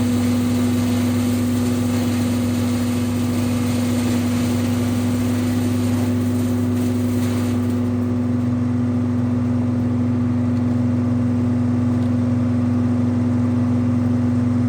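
Peterson 4310B drum wood chipper's engine running steadily at a constant, loud drone. A hiss on top of the drone fades out about eight seconds in.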